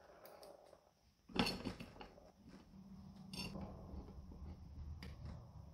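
Faint metallic clinks and scraping as a hex key seats in and turns the steel bolts holding an aluminium motor plate to a small lathe's spindle head; two sharper clinks stand out, about a second and a half in and again about three and a half seconds in.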